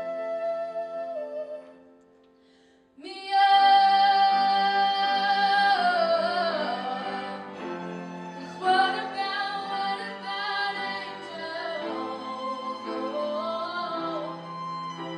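A female voice singing through a microphone, accompanied by grand piano, cello and violin. The music fades almost to nothing about two seconds in, then voice and instruments come back in loudly about a second later.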